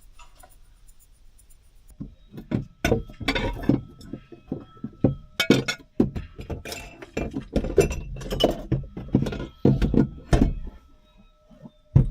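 A run of clinks and knocks from small hard objects being handled, some with a glassy ring, starting about two seconds in, with one more knock near the end.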